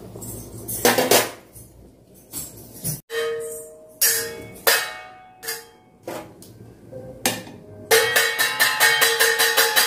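Music with a held steady tone, joined about two seconds before the end by quick, even percussion strikes, about five a second. In the first seconds, before an abrupt cut, there are a few loud knocks.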